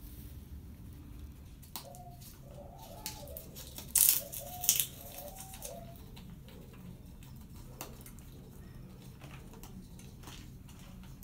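Blue-and-gold macaw making soft, low, coo-like murmurs for a few seconds, broken about four seconds in by two loud, sharp crunching cracks, then scattered light clicks.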